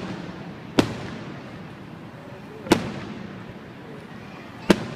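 Aerial fireworks shells bursting: three sharp bangs about two seconds apart, each trailing off in a fading echo.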